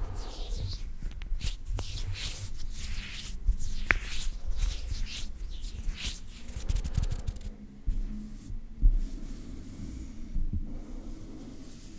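ASMR hand sounds close to a condenser microphone: hands and knuckles rubbing and swishing against each other, with a few sharp clicks. After about seven seconds it turns quieter, with fingers fluttering near the microphone and soft low thumps.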